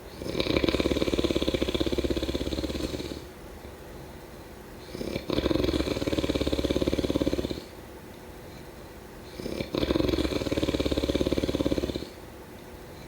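A sleeper snoring in a slow, even rhythm: three long snores, each over two seconds with a fast flutter through it, with quieter pauses between.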